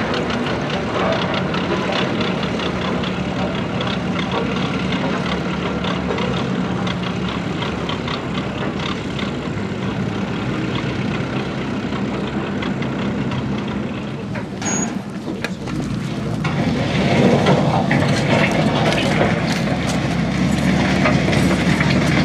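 Heavy diesel engines of trucks and road-works machinery running steadily, with the noise growing louder and busier in the last few seconds.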